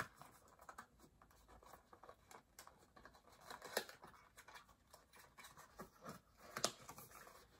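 Small cardboard box being handled and opened by hand: faint scraping and rustling of cardboard, with a few sharper taps and clicks.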